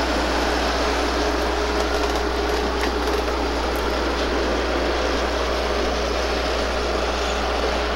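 Passenger train rolling past at close range, a steady rumble of wheels on rail: first the dome passenger cars, then the EMD E8A diesel locomotive pushing at the rear.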